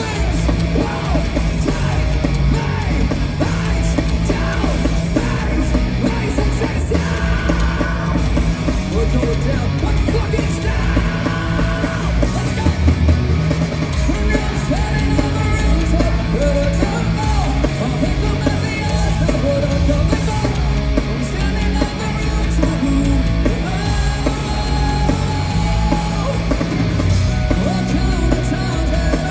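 Live rock band playing loud, with electric guitars, drums and shouted vocals, heard from within the concert crowd.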